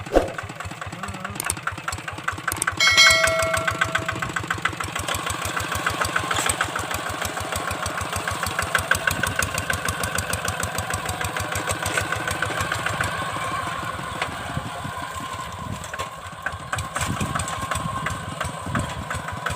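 Kubota single-cylinder diesel engine of a walking hand tractor running steadily with a rapid, even chugging. A sharp knock comes right at the start and a short high tone about three seconds in.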